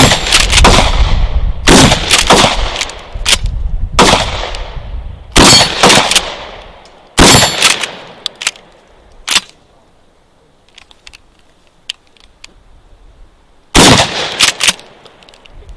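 Mossberg 590 pump-action shotgun firing slugs, about seven loud shots at irregular spacing, each with a short echoing tail. After a lull of a few seconds with a few faint clicks, another shot comes near the end.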